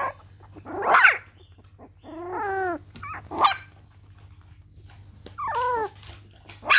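Young puppies whining and yelping, four short cries with quiet between, the longest about two seconds in. They are hungry and calling for their mother.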